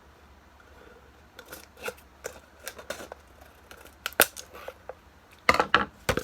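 Scissors snipping through a plastic piece in irregular cuts, with a loud snip about four seconds in and a quick run of louder snips and handling rustle near the end.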